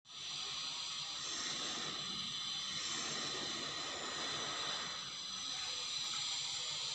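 Steady room noise: an even hiss with a faint low hum underneath, unchanging throughout.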